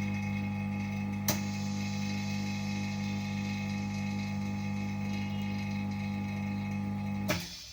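Steady electric hum of a running machine, with a sharp click about a second in; near the end it is switched off with a click and the hum dies away.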